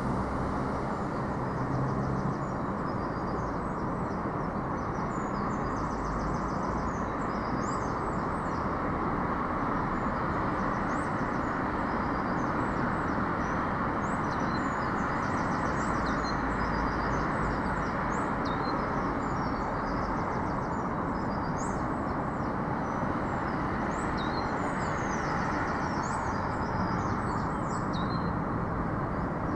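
A steady low rumble and hiss, which the recorder presents as a disorientating low-frequency noise, with many small high chirps and trills over it.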